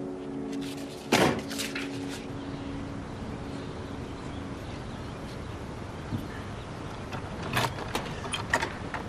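Metal latch on a wooden door being worked by hand: several sharp clicks and knocks near the end. A single loud knock comes about a second in.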